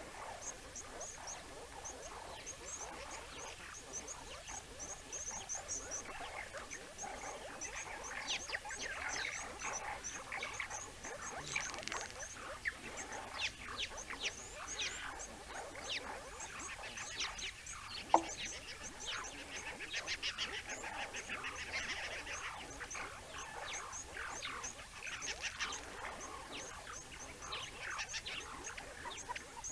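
A banded mongoose troop calling constantly, an overlapping chorus of short, high chirps and twitters. There is one sharp click a little over halfway through.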